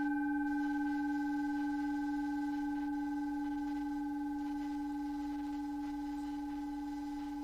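A steady, sustained meditation tone with a few higher ringing overtones, slowly fading.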